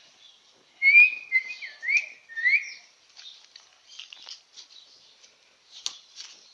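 A person whistling a short run of four loud, sliding notes, about a second in and lasting about two seconds.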